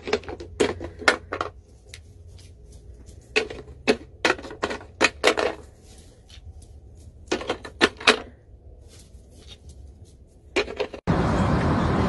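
Irregular clusters of sharp taps and clicks over a low steady hum. About a second before the end it cuts suddenly to a loud, steady rushing noise.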